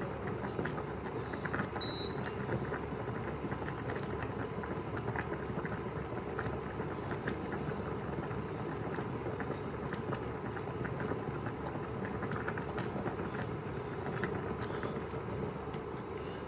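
Millet noodles boiling in a pot of water on a stove: a steady bubbling rumble with many small scattered pops.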